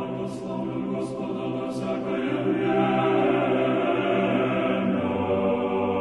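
Music: a choir singing slow, sustained chords.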